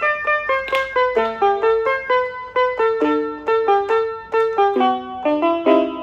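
BigFun BF-630A1 61-key toy electronic keyboard being played: a melody of short notes, about three a second, sometimes two at once.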